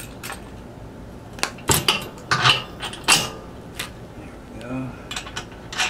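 Small metal parts clinking and clattering, a washer, nut and axle hardware being handled while a wheel is fitted onto a portable generator's axle. There are about half a dozen sharp, irregular clinks, bunched in the first half.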